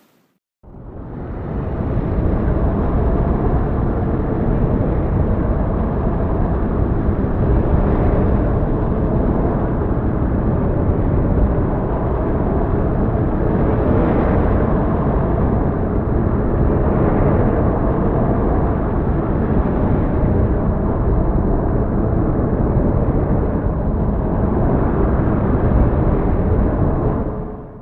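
Heavy rain pouring as a steady, loud rushing noise with a deep rumble underneath. It fades in just under a second in and fades out near the end.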